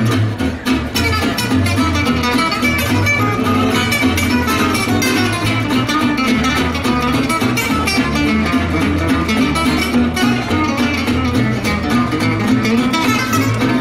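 Background music: quick, busily plucked guitar in a flamenco style over a steady bass line.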